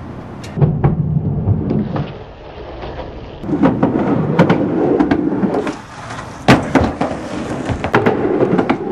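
Skateboard rolling on a wooden halfpipe ramp: a loud hollow rumble of the wheels on the wood in two long passes, with sharp clacks and knocks of the board on the ramp, the loudest about six and a half seconds in.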